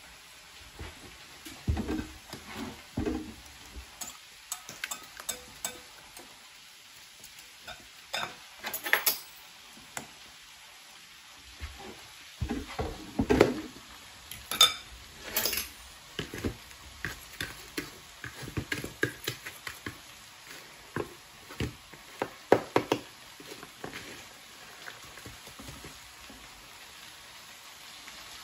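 Zucchini strips being dredged in flour and pressed into breadcrumbs in glass bowls, with irregular taps, scrapes and a few sharp clinks of a metal fork and whisk against the glass.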